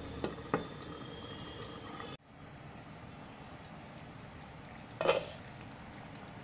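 Thick chicken gravy simmering in a kadhai, a soft steady bubbling, with two light clinks of the glass lid being set on the pan near the start and one louder pop about five seconds in.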